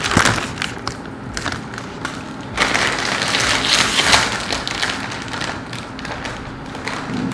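A bag of Doritos crinkling and crackling as it is handled and pulled open, with a thump near the start and a louder stretch of crackling about two and a half seconds in.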